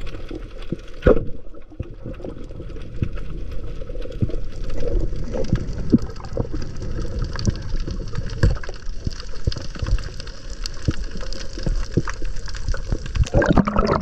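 Underwater sound picked up by a submerged action camera during spearfishing: muffled water movement with scattered clicks and knocks and one sharp knock about a second in. Near the end it turns into louder splashing and gurgling as the camera comes up to the surface with the speared parrotfish.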